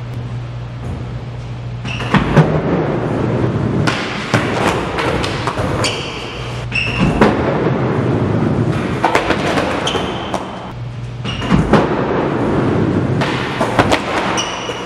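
Skateboard wheels rolling over wood and concrete in a large echoing room, broken by repeated board pops, thuds and clattering impacts as a trick down the stair-set handrail is tried without landing it. Short squeaks are heard among the impacts.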